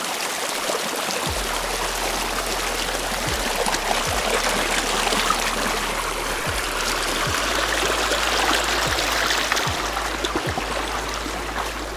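Small forest brook running over stones: a steady rushing babble of shallow water, with a low rumble and occasional low bumps underneath.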